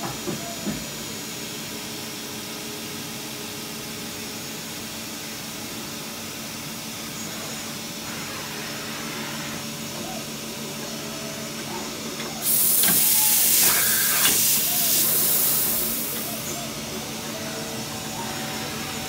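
Mazak INTEGREX 200-IV CNC turning-milling centre running, a steady machine hum with several constant tones while its milling head moves. About twelve seconds in, a loud hiss starts, holds for about four seconds and fades out.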